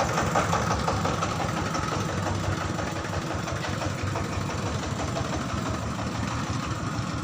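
Engine running steadily with a regular firing beat, easing off slightly in loudness.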